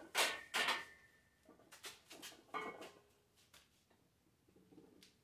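A man's sharp, forceful breaths, two in the first second, as he braces under a loaded barbell for a back squat, followed by a few fainter short breaths and small knocks that die away.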